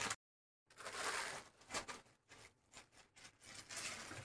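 Plastic courier packets rustling and crinkling as they are handled, in a few short spells with pauses between.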